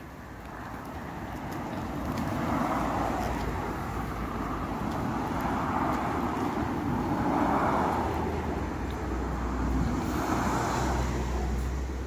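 Cars passing on a road: three swells of tyre and engine noise that rise and fade, with a low engine rumble growing stronger near the end.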